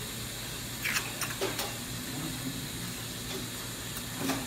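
A steady hiss, with a few short faint sounds about a second in and again near the end.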